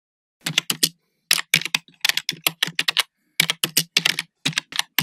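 Typing sound effect: a string of sharp keystroke clicks, about six a second, in short runs separated by brief pauses, starting about half a second in.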